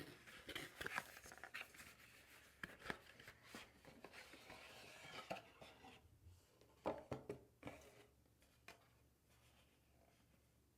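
Near silence with faint handling sounds: scattered small clicks and soft rubbing, with a short cluster of clicks about two-thirds of the way through.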